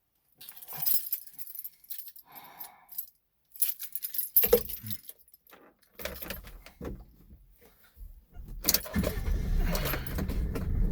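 A bunch of keys jangling and clinking, with one thump about four and a half seconds in. A low steady rumble rises near the end.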